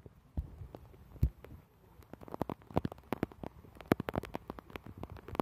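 Irregular knocks and clicks from someone walking a wet, rocky trail with a handheld phone: two low thumps in the first second and a half, then a denser run of knocks.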